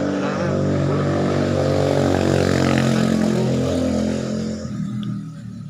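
A motor engine running loudly, swelling and then fading away about four and a half seconds in, like a vehicle passing.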